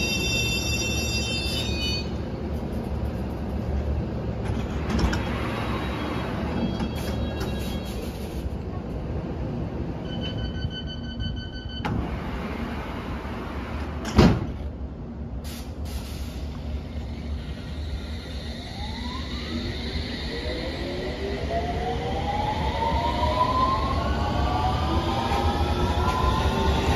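London Underground S7 Stock train standing at the platform, then departing. A high squeal fades out at the start and a steady warning tone sounds for about two seconds halfway through. The doors then shut with a sharp thud, the loudest sound. After that the traction motors whine, rising in pitch, as the train pulls away.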